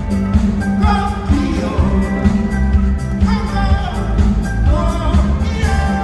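Loud pop-rock music with a singing voice over a steady, driving beat.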